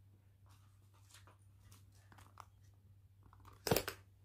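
Hands handling a leather handbag: faint rustles and small taps, with one louder rustling knock about three and a half seconds in, over a low steady hum.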